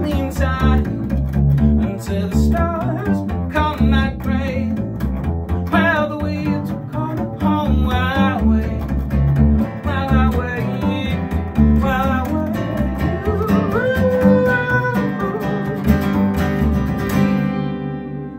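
Acoustic guitar strummed and upright double bass plucked, with a man singing over them; a little past halfway he holds one long note, and near the end the last chords ring out and fade as the song closes.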